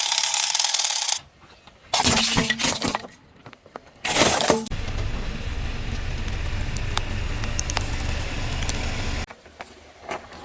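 Objects crunching and cracking under a car's tyres, in abrupt edited bursts with sharp clinks, followed by a few seconds of steady rolling noise with a low rumble that cuts off suddenly near the end.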